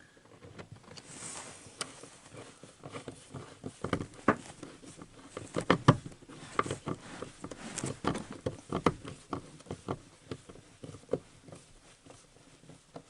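Irregular clicks, knocks and scrapes of hand tools and small hardware being handled as an earth wire is refitted to a new screw, busiest in the middle.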